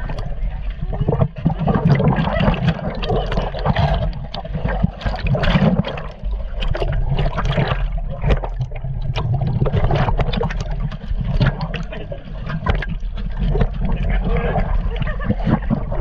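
Water sloshing, gurgling and bubbling around a partly submerged camera, with frequent sharp splashes and knocks as a crowd of large feeding carp and striped bass churn the water.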